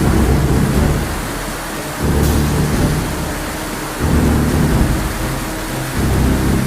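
Added soundtrack: a heavy low rumble under a steady hiss, swelling on a regular beat about every two seconds.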